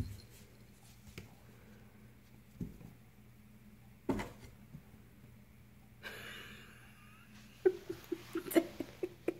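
Cats playing in a cardboard box: scattered thumps of paws and bodies on the cardboard and wooden floor, the loudest about four seconds in as one cat leaps, and a quick run of claw clicks and taps near the end.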